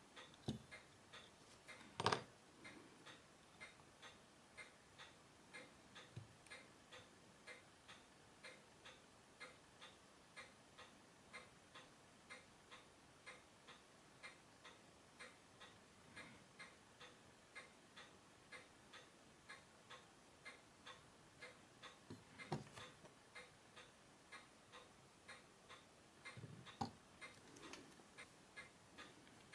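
Steady, faint ticking of a running Unitas 6497 hand-wound pocket-watch movement. A few louder clicks and knocks of metal case parts and tools are mixed in, the loudest about two seconds in.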